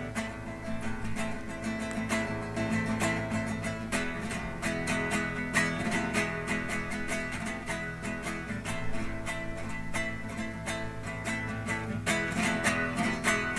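Background music led by plucked and strummed guitar, with a steady run of picked notes.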